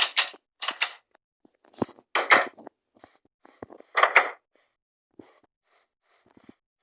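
Hand tools from a Craftsman tool set being handled and set down: a series of sharp knocks and clatters, a few with a brief metallic ring, in groups near the start, about two seconds in and about four seconds in, then a few light taps.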